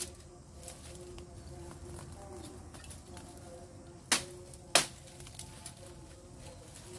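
Twigs and stems in a bamboo thicket snapping as they are handled by hand: scattered small clicks, then two sharp cracks about half a second apart a little past the middle. A faint, steady hum of bees runs underneath.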